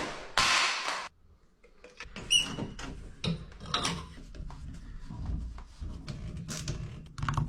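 A short burst of hiss, a brief pause, then scattered light knocks, clicks and scrapes of objects being handled.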